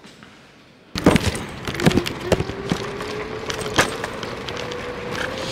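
A vehicle running, starting abruptly about a second in, with a faint tone that slowly rises in pitch and several sharp knocks and clicks over a steady rushing noise.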